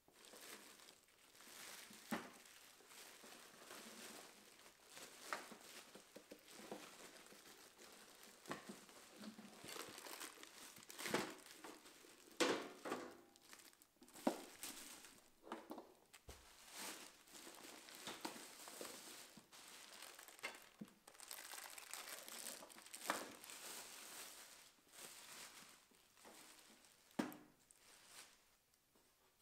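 Clear plastic packaging bag crinkling and rustling as it is handled and pulled off an electric grill, with a few sharp knocks in between.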